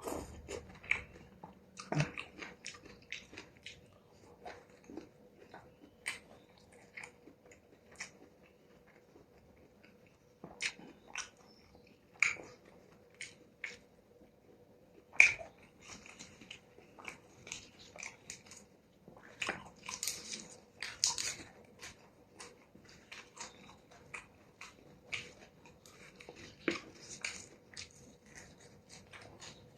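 Close-miked eating of noodle soup with stewed beef and beef balls: chewing and mouth smacks as irregular short clicks, with a few longer noisy bursts about twenty seconds in.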